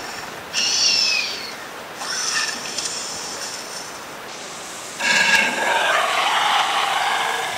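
Dinosaur roar sound effects: short high screeches, then about five seconds in a louder, longer roar with a rushing, growly edge that fades near the end.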